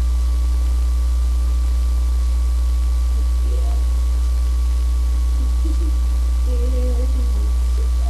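Steady low electrical mains hum with a thin steady high tone over it, unchanging throughout. A few faint, brief soft vocal sounds come through in the second half.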